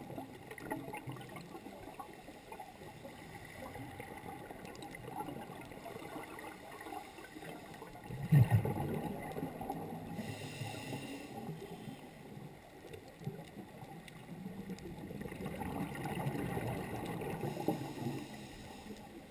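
Underwater sound of a scuba diver's regulator breathing: a steady gurgle and rumble of water, a loud gurgle of exhaled bubbles about eight seconds in, and hissing inhalations around ten and seventeen seconds in.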